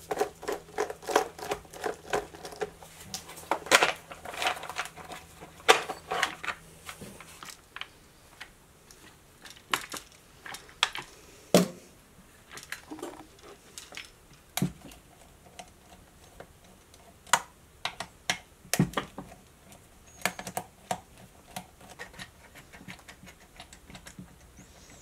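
Irregular clicks, taps and knocks of plastic housing parts and tools being handled while a Craftsman chainsaw is taken apart and its top cover lifted off, with a few sharper knocks among quieter rattling.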